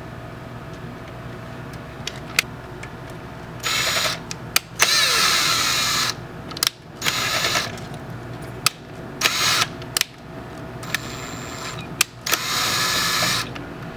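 Power drill driving screws in a string of short runs, each half a second to a second long, with sharp clicks between them, over a steady low hum.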